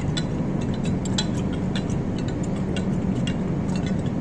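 A slide holder being dipped repeatedly into a glass staining jar of alcohol, clinking lightly against the jar in a quick run of small clicks, about two to three a second, over a steady low hum.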